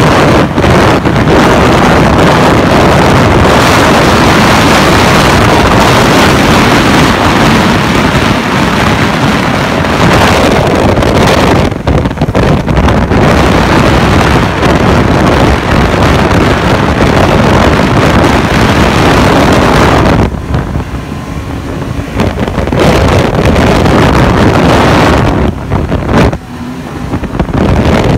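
Snowmobile running at speed along a packed trail, its engine mixed with heavy wind buffeting on the microphone. The noise eases for a couple of seconds twice in the latter part.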